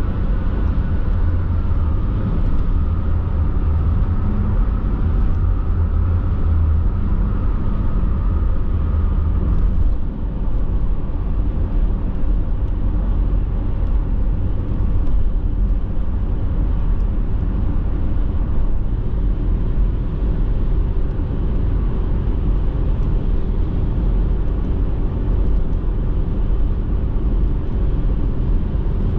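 Car cruising at highway speed, heard from inside the cabin: a steady rumble of tyres on the road with engine hum. A faint high whine fades out about ten seconds in.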